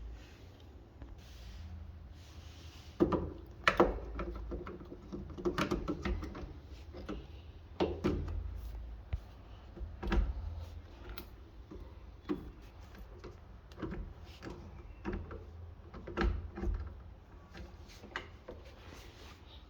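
Irregular knocks, clicks and rattles of hard parts being handled, about one or two a second in loose clusters, over a faint low hum.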